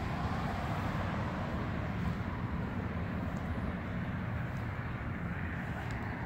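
Steady low rumble of a car driving slowly: engine and tyre noise with a faint hum, no sharp events.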